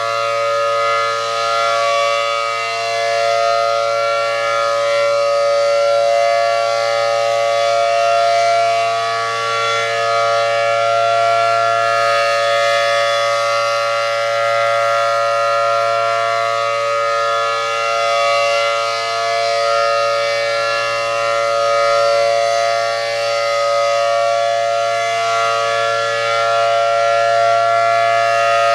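ACA Allertor 125 rotating outdoor warning siren with 10 and 12 port rotors sounding its full-alert signal: one steady, loud dual-tone chord that swells and fades every few seconds as the siren head rotates.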